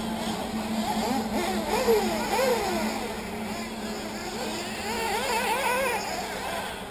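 Several 1/8-scale nitro RC buggy engines revving up and down in high-pitched whines as the cars race around the track, the pitch swooping up and falling away again and again, over a steady low hum.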